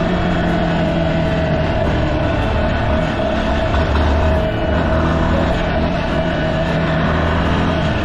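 Yamaha Serow 250's air-cooled single-cylinder engine running steadily as the motorcycle rides along.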